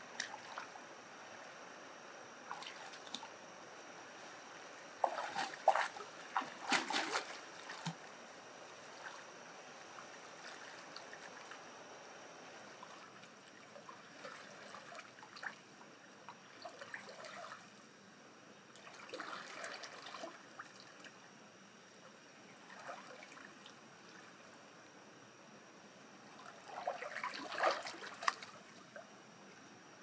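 Water splashing and trickling in three short bouts, over a steady faint hiss.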